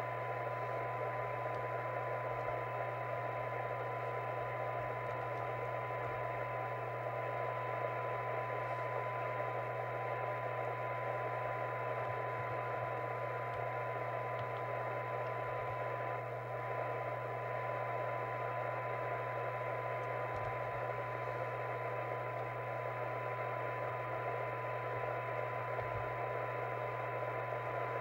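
Binatone 5-star CB radio's speaker sounding a weak received signal: a steady test tone from the signal generator buried in loud receiver hiss, over a low hum. The signal is only about a quarter to a third of a microvolt, near the limit of the receiver's sensitivity, as its receive alignment is tweaked.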